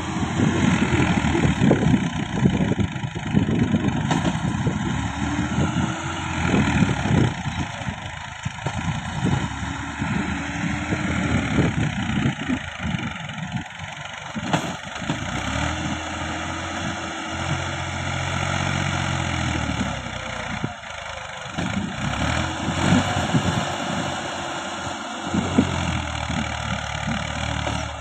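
Massey Ferguson 240 tractor's three-cylinder diesel engine working hard while pulling a loaded trolley through sand, its revs rising and falling several times and black smoke puffing from the exhaust.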